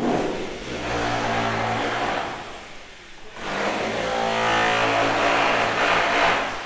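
A motor-driven machine running in two long stretches, with a dip about three seconds in.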